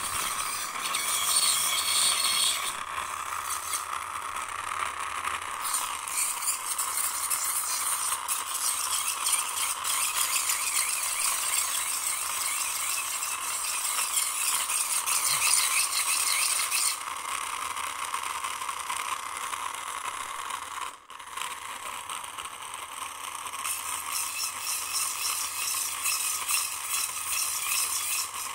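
Crinkling and rattling of plastic as an upturned plastic toy car is handled with a crumpled plastic wrapper, continuous and crackly with many small clicks.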